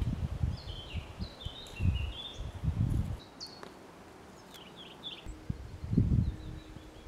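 Small songbirds chirping and singing outdoors, including a quick run of notes falling in pitch about a second in. Several low rumbles, from wind on the microphone, are louder than the birdsong, the strongest about two and six seconds in.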